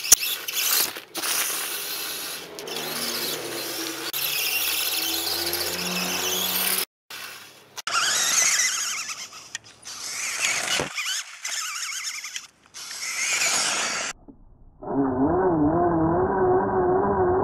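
Small electric RC motor of a LEGO Technic mini buggy whining as it drives, its pitch rising and falling with speed, over the noise of tyres on gravel. The sound breaks off and changes abruptly several times.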